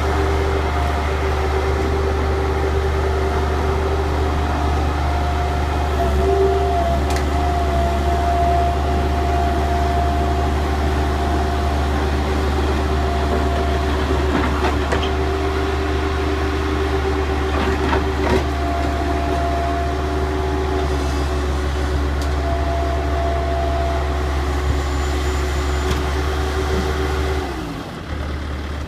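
Skid steer loader's engine running steadily under load, a constant low drone with a steady whine over it and a few short clanks; the engine sound falls away near the end.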